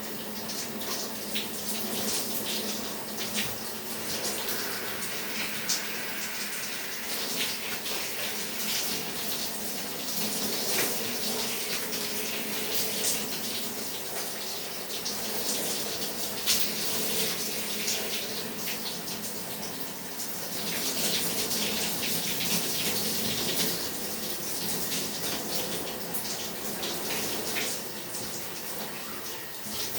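Shower water running and splashing, its spray changing as it falls on a person and the tub, with small sharp splashes and drips throughout, in a small tiled bathroom.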